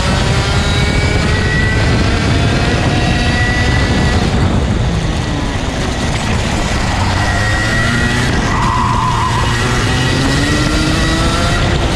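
TAG Senior racing kart's 125cc two-stroke engine running hard at track speed, heard from on board, its pitch rising and falling as the driver accelerates and lifts, over a dense rushing noise.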